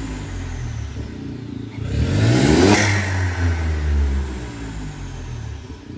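Volkswagen Polo 1.0 TSI three-cylinder turbo engine revving with its exhaust cutout open and no catalytic converter (downpipe fitted). The revs fall off toward idle, then a quick blip about two seconds in with a rush of intake hiss at its peak, then settle back to idle.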